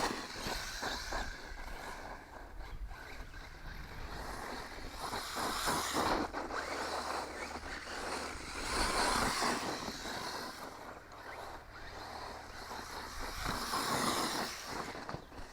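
JLB Cheetah RC truck running on a 2S LiPo, its motor and tires on the ground making a noisy rush that swells louder three times, about six, nine and fourteen seconds in, as it passes near and pulls away.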